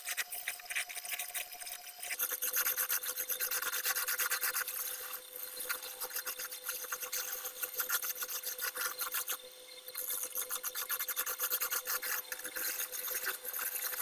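Wooden blank spinning on a belt-driven wood lathe while it is worked by hand, giving a dense, continuous rasping scrape over the steady hum of the lathe's motor. The hum drops in pitch about two seconds in, and the scraping eases briefly about two-thirds of the way through.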